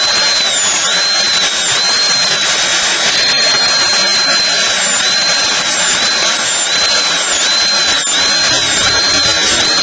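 High-speed dental handpiece whining steadily as its bur cuts the side of a central incisor during proximal reduction for a crown preparation. The pitch dips briefly again and again as the bur bites into the tooth under load.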